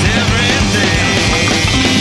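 Loud rock music with electric guitars and a steady drum beat.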